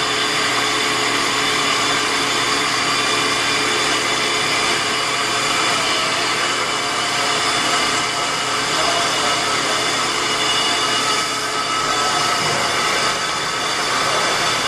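Metal lathe running with a carbide-insert boring bar cutting inside the bore of a shaft. It makes a steady mechanical whine with several held high tones.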